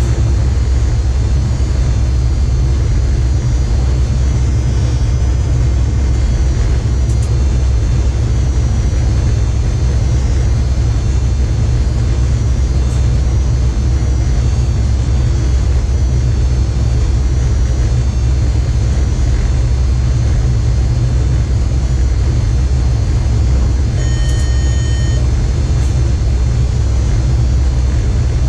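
Steady low rumble inside an electric train's driver's cab running at speed. Near the end a single beep of about a second sounds from a cab alert tone.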